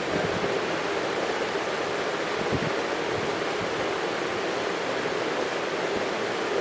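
Steady, even rushing noise with no clear tone, with a faint low thump about two and a half seconds in.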